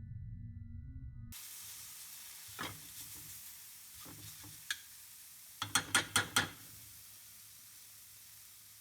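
A steady hiss with sharp crackling clicks: a few single clicks, then a quick run of five about six seconds in. It replaces a low drone that cuts off about a second in.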